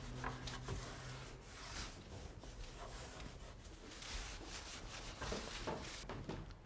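A scrub pad is rubbed back and forth over bare wood trim in repeated, irregular strokes, wiping the last paint-stripper residue off with warm water.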